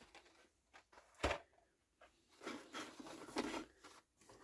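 Blister-carded toy cars being handled in a cardboard carton: a sharp knock about a second in, then a couple of seconds of rustling and scraping of card and plastic packaging.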